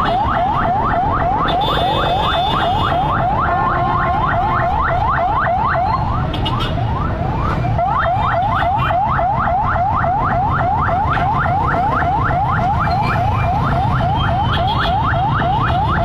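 An electronic alarm sounding a fast, repeated rising wail, about five sweeps a second, which fades briefly about six seconds in and then resumes. A steady low rumble of background noise runs underneath.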